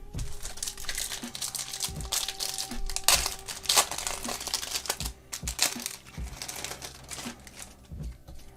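Foil wrapper of a Yu-Gi-Oh booster pack crinkling in the hands as it is opened, with irregular crackles that are busiest a few seconds in.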